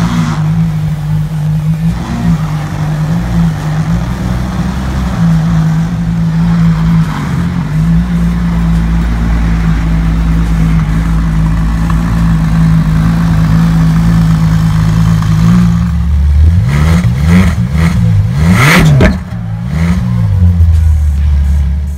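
Ferrari LaFerrari's V12 engine idling steadily, then revved in several quick blips that rise and fall in pitch, settling back to idle near the end.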